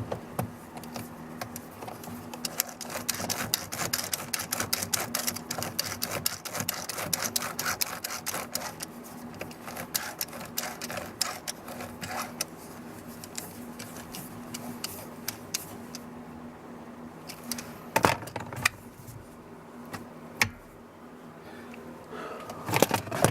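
A screw being driven in: a long run of rapid, even clicking over a steady hum for about fifteen seconds, then a couple of sharp knocks near the end.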